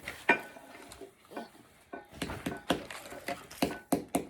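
Irregular sharp taps and clinks of hard objects knocking together, some with a short ring, coming faster toward the end.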